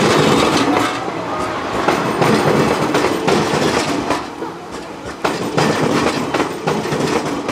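JR East E001 series TRAIN SUITE Shiki-shima cars rolling past close by, a loud running rumble with the wheels clacking irregularly over rail joints.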